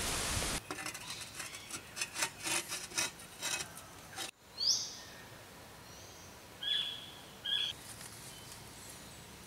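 A steady hiss cuts off suddenly, followed by a few seconds of light clicks and taps from hands working at a tiled roof's lashings and tiles. Then wild birds call: one rising whistle, and two short calls about a second apart.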